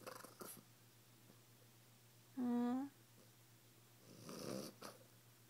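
A French bulldog vocalizing at her owner: a short, pitched whining grumble about halfway through, then a breathy huff about a second later.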